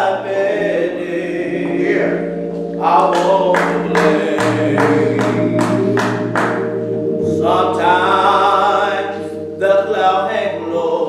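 A man singing a slow gospel song solo, his voice bending and holding long notes over sustained low accompaniment chords. In the middle comes a run of about nine sharp, evenly spaced beats, a little over two a second.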